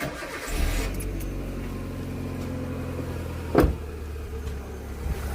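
Kia Picanto's petrol engine running steadily at idle after its rusted Welch plugs were replaced. A single sharp knock comes about three and a half seconds in.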